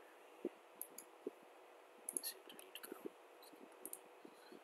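Computer mouse clicking, a series of short, sharp clicks at irregular intervals, over a faint steady hum.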